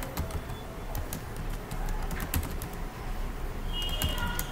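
Computer keyboard keys tapped in scattered clicks as a command is typed and entered. Near the end a bird calls with a steady high note.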